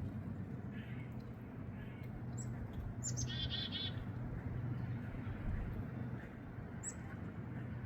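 Small songbirds calling: a few short, high, falling chirps and a buzzy call of quickly repeated notes about three seconds in, over a steady low hum.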